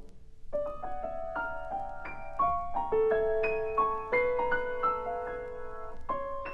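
Solo piano playing: a held chord dies away, then about half a second in a run of single struck notes begins, each ringing on under the next.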